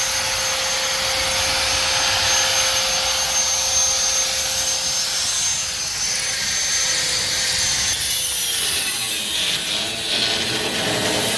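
An electric motor running with a steady whine over a loud hissing rush; about eight and a half seconds in the whine drops in pitch as the motor winds down.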